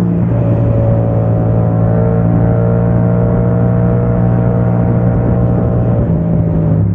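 Yamaha motorcycle engine running at a steady cruising speed, over road and wind noise. The engine note shifts slightly about six seconds in.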